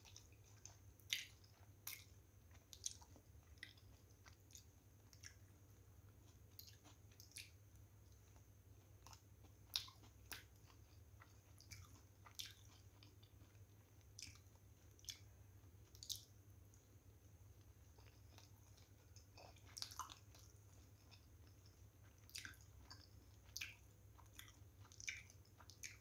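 Chewing of soft steamed veg momos, heard as wet mouth clicks and smacks at irregular intervals, with a faint low hum underneath.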